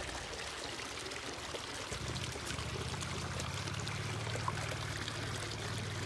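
Spring water welling up through a pipe set in the sand and running over the sandy bed: a steady pouring, trickling sound.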